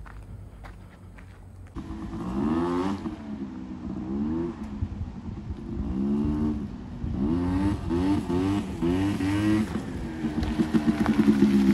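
Small motor scooter engine revving, its pitch rising and falling again and again as it rides. It comes in suddenly about two seconds in, after a low rumble.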